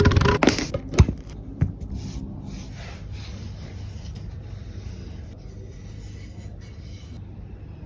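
Wood being worked by hand: a few sharp knocks in the first second, then a steady rubbing noise on the wood.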